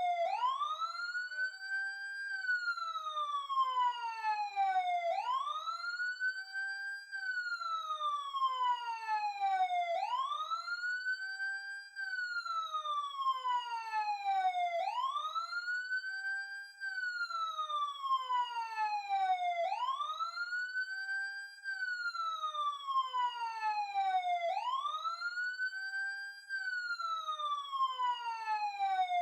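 Police siren in a wail pattern: a single tone sweeps quickly up, holds briefly at the top, then slides slowly back down, repeating about every five seconds.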